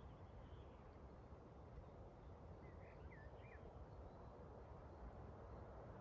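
Faint forest ambience: a steady hiss of wind, with a few short bird chirps about halfway through.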